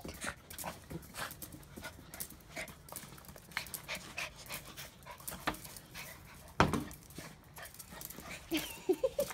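Small fox terriers panting excitedly, with many quick clicks of claws and paws on brick paving. There is a single loud knock about two-thirds of the way through, and a few short whines near the end.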